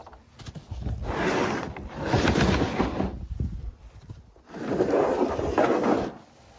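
Tool bag being pulled out and handled: two stretches of scraping and rustling, each about two seconds long, with a short pause between.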